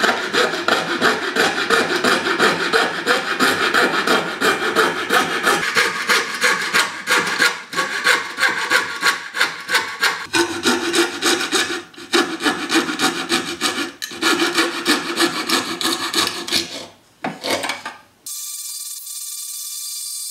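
Coping saw cutting 3/8-inch plywood by hand in quick, rhythmic back-and-forth strokes. The strokes pause briefly near the end.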